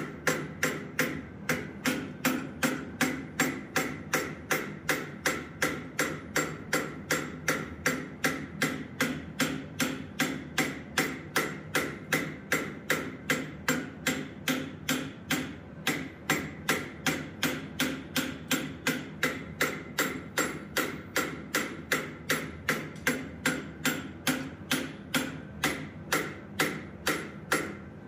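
Hand hammer striking red-hot metal clamped in a blacksmith's leg vise, in a steady rhythm of about two and a half blows a second with one short break about halfway. The blows are forging down the turtle's shell over the vise jaws.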